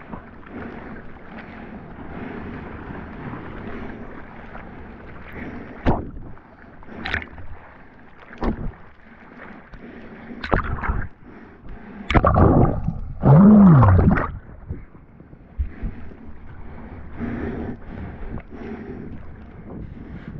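Water sloshing and splashing around a body-worn action camera as a bodyboarder paddles out through the surf, with sudden louder rushes of water, the biggest about two thirds of the way through.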